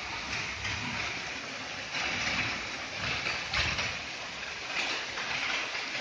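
Heavy rain falling steadily, with a sheet of runoff water streaming down concrete steps and across a landing.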